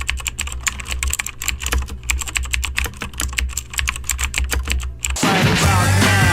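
Rapid, irregular clicking of typing on a computer keyboard over a low hum. About five seconds in, loud rock music starts abruptly.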